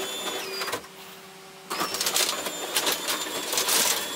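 Genie Smart 1 HPc belt-drive garage door opener running a sectional door down, the door's rollers clattering and clicking in the steel tracks over a faint motor whine. The sound dips for about a second early in the run, then picks up again.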